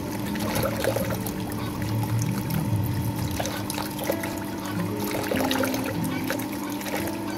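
Tap water trickling into a basin of raw squid and splashing as hands wash and peel them, with background music playing throughout.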